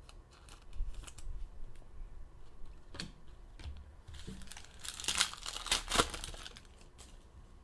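A trading card pack's wrapper crinkling and tearing as it is opened, loudest about five to six seconds in, with light clicks of cards being handled before it.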